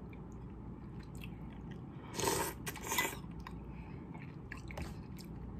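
A person eating instant noodles with boiled eggs: quiet chewing with small wet mouth clicks, and two louder short noisy sounds about two and three seconds in.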